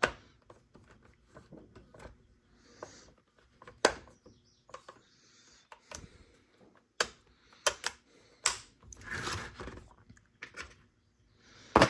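Handling noise from chainsaw parts being picked up and set down: scattered sharp clicks and knocks at irregular intervals, with a short rustle about nine seconds in.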